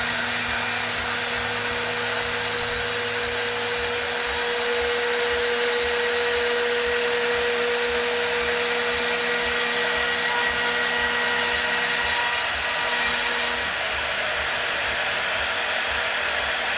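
CNC router running steadily, its spindle giving a constant whirring noise. A lower steady tone runs underneath and drops out about 14 seconds in, while the spindle keeps going.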